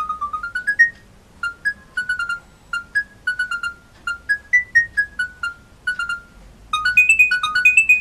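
Alcatel OT-S121 mobile phone's ringtone preview from its built-in speaker: a simple electronic melody of beeping notes, one note at a time. The melody breaks off about a second in, resumes with evenly spaced notes, then pauses briefly and picks up a faster, busier run of notes near the end.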